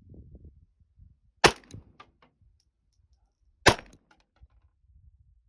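1911-style .22 LR pistol fired twice, about two seconds apart, each sharp shot followed by a few light clicks.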